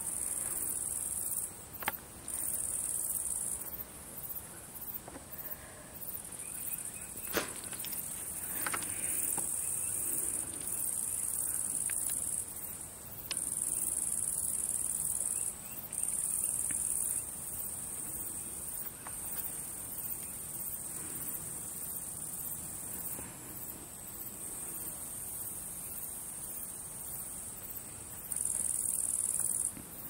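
Crickets chirping in the grass: a steady, very high-pitched trill that grows louder in stretches of one to two seconds, over and over, with a sharp knock about seven seconds in.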